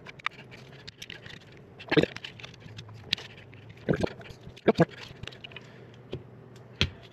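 Spudgers prying at the plastic back case cover of a Hivemapper dashcam: irregular small clicks and ticks with a few sharp cracks, the loudest about two seconds in and again around four to five seconds in and near the end.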